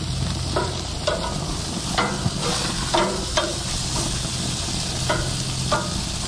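Beef short ribs sizzling on the hot grates of a gas grill while metal tongs flip them, giving a string of short metallic clinks against the grates over the steady sizzle. A steady low hum runs underneath.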